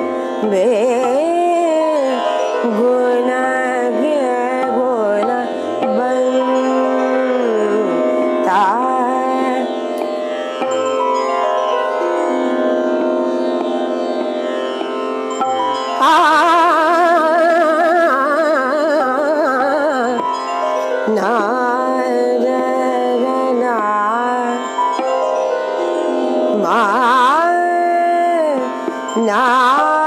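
A woman singing a slow Indian classical-style melody, with long held notes that waver and slide in ornamented turns, over a steady drone underneath.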